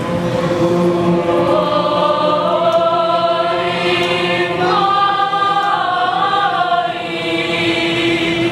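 A chorus of voices singing a slow, sustained chant, with long held notes that bend slowly up and down in pitch.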